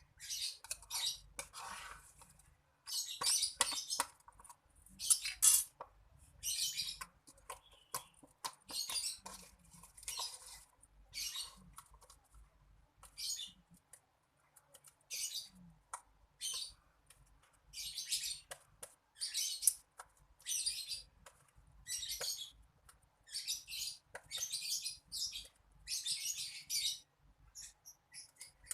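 Soft homemade slime being squished and stretched by hand, giving repeated wet, crackly squelches about once a second as the air pockets in it pop.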